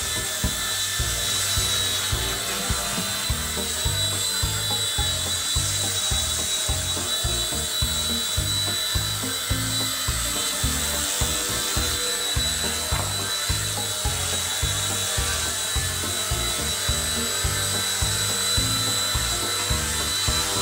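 Eachine E129 micro RC helicopter in flight: its small electric rotor motors whine steadily and high, over background music with a steady beat.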